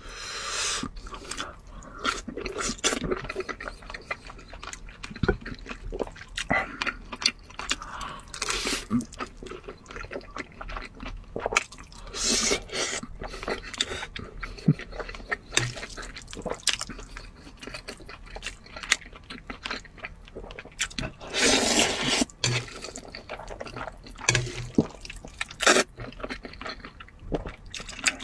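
Close-miked eating sounds: wet chewing and lip-smacking on braised pork belly and noodles, with a few louder slurps.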